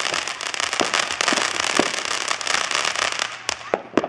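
Consumer fireworks crackling: a dense, rapid string of small pops from a fountain's crackling stars and aerial shells. About three and a half seconds in and again just before the end come several sharper bangs, and the crackle thins out.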